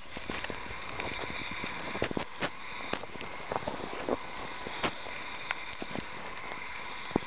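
Footsteps crunching in deep snow as a person and a small puppy move through it: irregular short crunches and clicks over a steady hiss.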